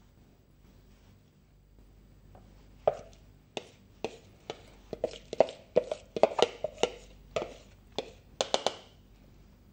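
Serving spoon knocking and scraping against a plastic mixing bowl, tapping rice out onto a tray. It is a run of about twenty sharp, hollow taps, starting about three seconds in and coming fastest in the middle.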